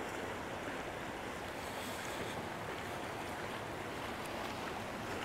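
Steady outdoor noise of wind and moving water, with no distinct events.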